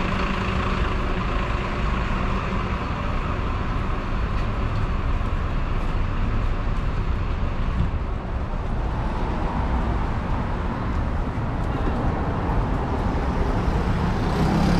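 City street traffic: motor vehicle engines running close by, giving a steady, dense noise.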